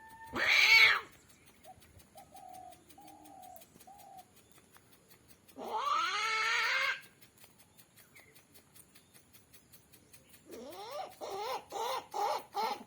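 Rooster-like calls, as made by a man and an animal imitating a rooster: a loud short squawk at the start, a few soft clucking notes, a wavering call about a second long midway, then a quick run of rising yelps near the end.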